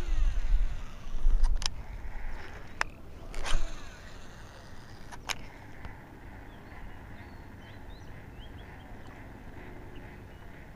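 A cast with a baitcasting reel: the spool whirs as line pays out, in a falling whine that fades over about a second, with rumble from handling. A few sharp clicks and knocks from the reel and rod follow over the next few seconds. After that there is a steady, quieter outdoor background with faint small bird calls.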